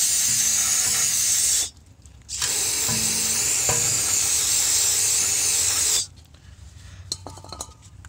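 Aerosol spray can blasting through its red extension straw onto a brake-line bracket: two long hissing sprays, the first about a second and a half, the second about three and a half seconds, with a short break between.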